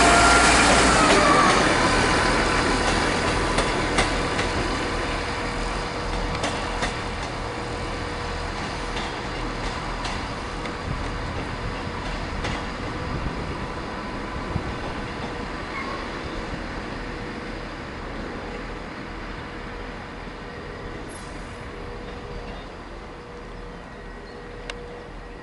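Diesel multiple unit train running and pulling away, loud at first with a whine that drops in pitch in the first second or two, then fading steadily as it recedes.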